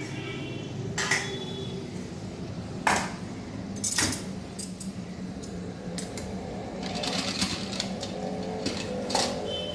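Metal utensils knocking and scraping against cooking pots as cooked rice is scooped from a pressure cooker into a kadai. There are sharp clanks about a second, three and four seconds in and again near the end, over a steady low hum.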